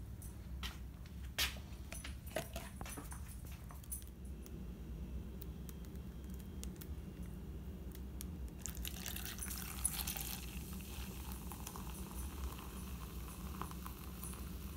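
A few handling clicks and knocks, then, from about nine seconds in, fizzy soda poured from a 2-litre plastic bottle over ice into a plastic cup, a hiss that settles into fainter fizzing as the cup fills. A low steady hum runs underneath.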